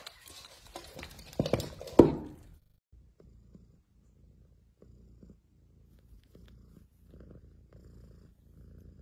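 A few loud knocks and clatter in the first two seconds, then an Abyssinian cat purring softly in slow, breath-length pulses.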